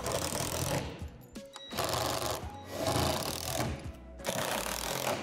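Cordless drill/driver running in three bursts, the middle one longest, driving bolts through the plastic wall panels.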